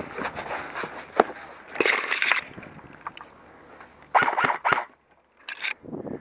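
Footsteps scuffing over concrete and dry leaves, with gear rattling and juniper branches brushing past, in a few short noisy bursts. There is a sharp click a little after a second in, and a cluster of three sharp scrapes a little after four seconds.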